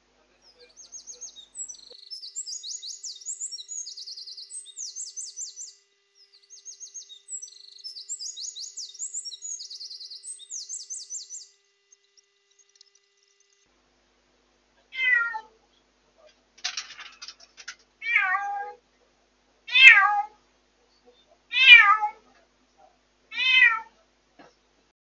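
Cat meowing: six loud falling calls, about two seconds apart, in the second half. Before them, a long run of high, fast, fluttering chirps.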